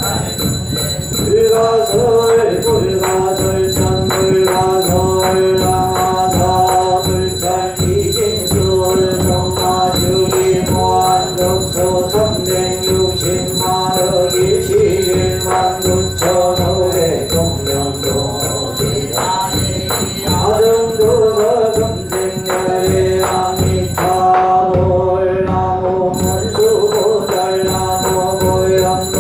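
Korean Buddhist yeombul chanting: a monk and congregation intoning long, sustained notes on a few pitches, over a steady rhythm of short percussive strikes.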